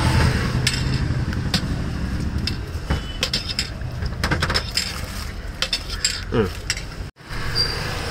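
A steel spoon stirring thick rice gruel in a stainless steel bowl, scraping and clinking irregularly against the metal.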